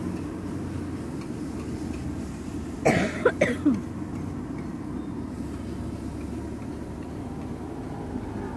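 A person coughs three or four times in quick succession about three seconds in, over a steady low hum of street traffic.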